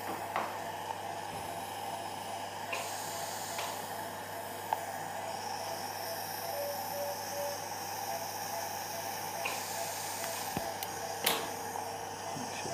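Operating-theatre background: a steady low hum and even hiss of running equipment, with a few sharp metallic clicks of surgical instruments, the loudest about eleven seconds in. Faint short tones repeat through the second half.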